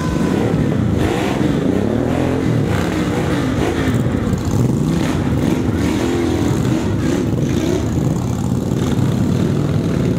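Several chopper-style motorcycle engines idling and being revved, their pitch rising and falling repeatedly and overlapping.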